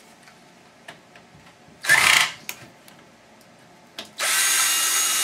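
Power drill running steadily for about a second and a half near the end while a projection TV is taken apart. A brief loud burst about two seconds in, with light clicks and knocks of handling before it.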